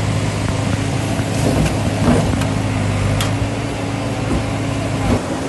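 Backhoe loader's diesel engine running steadily with a low hum, a few faint knocks over it; the hum cuts off about five seconds in.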